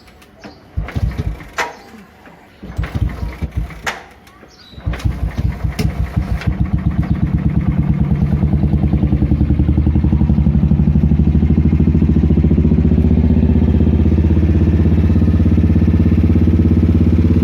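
Royal Enfield Classic 350's single-cylinder engine, fitted with its stock air filter, starting cold: a few uneven bursts for the first few seconds, then it catches about five seconds in and settles into a steady, even idle.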